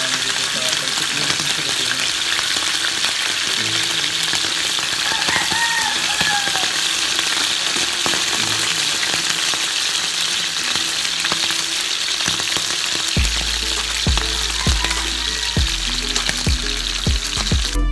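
Flaked canned tuna frying in hot oil in a wok, a steady sizzle, turned now and then with a wooden spatula. Music with a low beat comes in about three-quarters of the way through.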